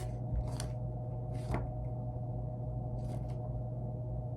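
A few soft, short handling noises, light knocks and rustles of an item and its packaging being moved, over a steady low hum.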